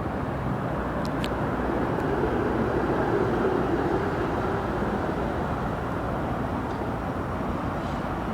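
GO Transit commuter train coming into the station: a steady rumble of locomotive and wheels that swells slightly a few seconds in, with no horn.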